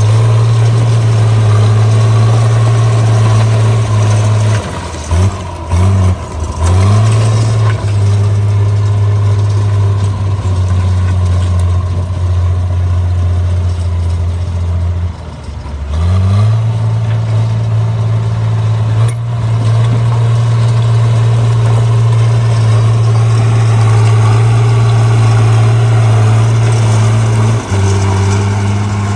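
Caterpillar D3C bulldozer's diesel engine running steadily under load. It dips in pitch several times about five seconds in and again about halfway through, each time climbing back up.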